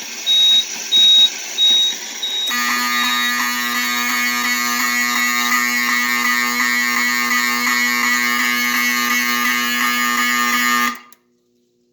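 A high electronic beep repeats about every 0.7 seconds. Then, about two and a half seconds in, a fire alarm horn starts sounding with a loud, steady buzzing tone, set off from the pulled pull station, and cuts off suddenly near the end.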